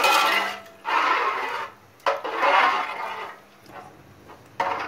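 A steel spoon stirring a watery tomato mixture in an aluminium pot: three swishing, sloshing strokes about a second apart, then a shorter one near the end. The boiling water for tomato rice has just been stirred in.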